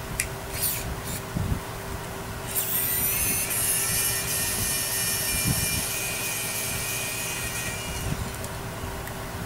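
Small electric precision screwdriver running, a steady whine for about five and a half seconds as it backs out tiny Phillips screws. It starts suddenly a couple of seconds in, after a few light handling clicks, and cuts off near the end.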